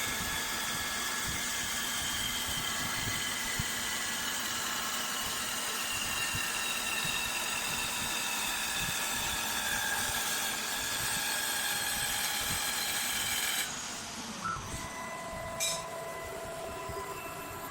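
Wood CNC machine running and cutting a wooden stick: a steady machine whine with several held tones that drift slightly in pitch. It drops off sharply about fourteen seconds in, leaving quieter running with a couple of short knocks.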